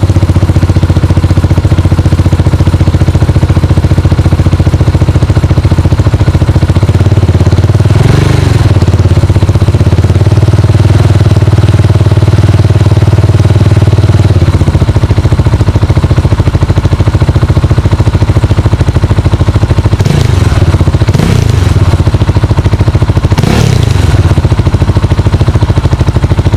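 KTM 690 Duke single-cylinder engine idling through an aftermarket exhaust, with short throttle blips about a third of the way in and a few more near the end.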